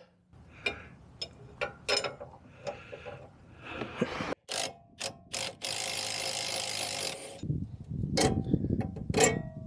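Ratchet wrench clicking in short strokes on a truck's lower shock bolt, with scattered metallic clicks and knocks. About two-thirds of the way through comes a steady harsh noise lasting nearly two seconds.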